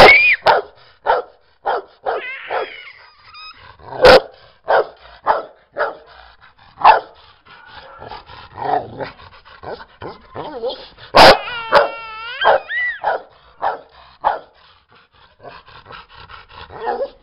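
Rottweiler barking repeatedly, short loud barks every second or so, with a couple of higher wavering whines in between.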